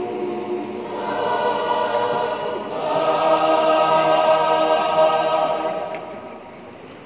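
Choir singing held chords that swell to the loudest sustained chord about three seconds in, then die away near the end.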